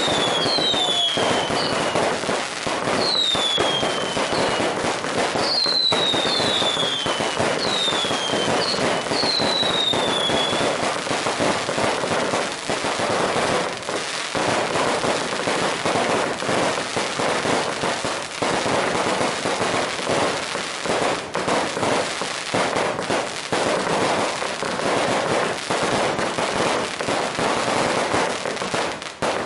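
Fireworks going off: a dense, continuous crackle of firecracker pops, with several falling whistles in roughly the first ten seconds.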